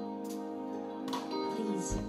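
A female vocalist singing a slow ballad with a live band, over sustained held chords. A low bass note comes in near the end.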